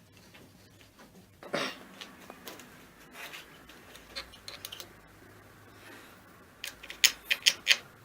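Hand work on a car starter motor's parts: scraping and rubbing, a knock about a second and a half in, and a quick run of sharp clicks near the end.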